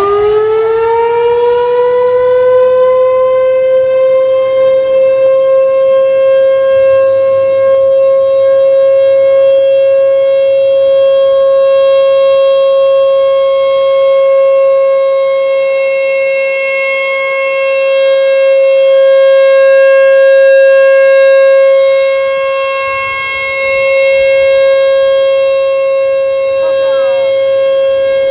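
American Signal T-128 outdoor warning siren sounding a loud, steady tone with many overtones. It has just wound up to full speed, and its pitch is still creeping up over the first couple of seconds before it holds. The level swells and dips slowly, with a clear dip about 23 seconds in.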